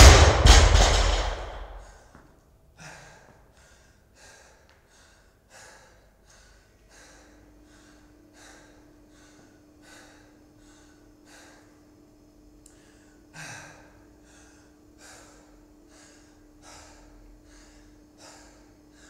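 A loaded barbell with bumper plates is dropped to the floor with a loud crash at the start. It is followed by a person panting hard, about one and a half quick breaths a second, winded from heavy barbell cleans.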